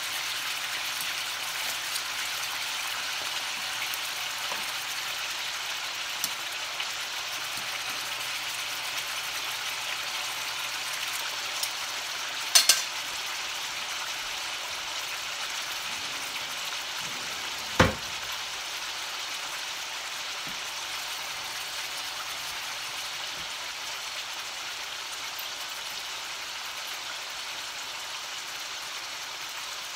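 Marinated beef frying in olive oil in a stainless steel skillet, giving a steady sizzle. A sharp double click comes about midway and a single knock a few seconds later.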